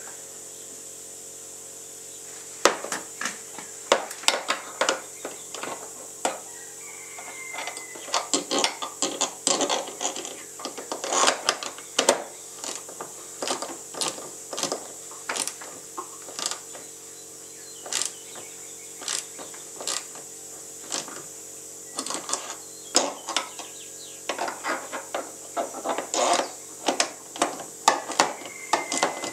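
Irregular clicks, taps and knocks of hand tools and small hardware being handled inside a jet ski's front hull, in uneven clusters, with two brief faint squeaks. A steady hum runs underneath.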